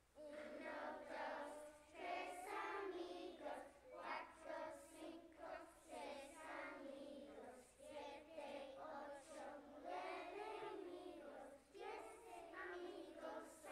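A group of preschool children singing a song together, starting suddenly and running in phrases with short breaks between them.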